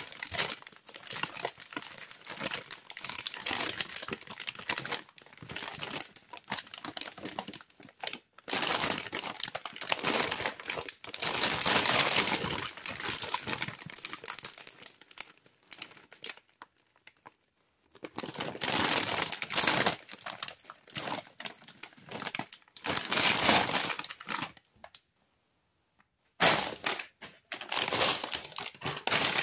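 Plastic Cheetos chip bags crinkling as they are handled and turned over by hand, in irregular bursts that stop twice for a second or two.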